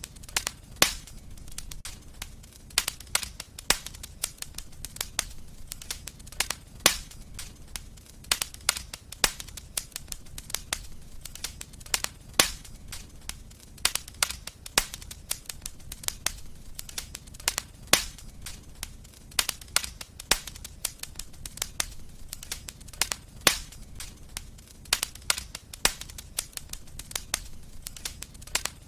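Wood fire crackling in a fireplace: a steady low rumble of flames with irregular sharp crackles and occasional louder pops, several a second.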